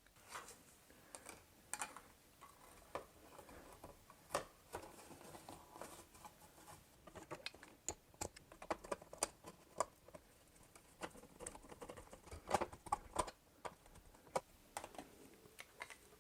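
Faint, irregular clicks and taps as an old smoke detector mounting plate is taken off a ceiling electrical box and a new one is fitted and tightened in its place.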